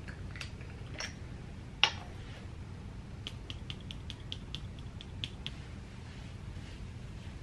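Hands handling a small bottle of hair oil and rubbing the oil between the palms: a few separate clicks, one sharper tap a little under two seconds in, then a quick run of light wet clicks for about two seconds, over a low room hum.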